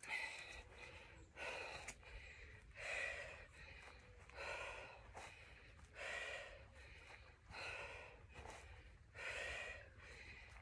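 A woman breathing hard while exercising, with short forceful exhales about every second and a half.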